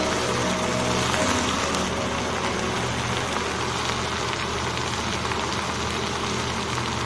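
Potato strips and okra pieces sizzling steadily as they fry in oil in a pan. Background music fades out about a second in.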